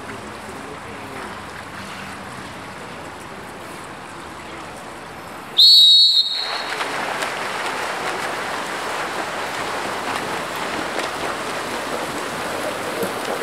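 Water polo referee's whistle: one short, shrill blast about halfway through, signalling the start of play. A louder, even background noise follows it.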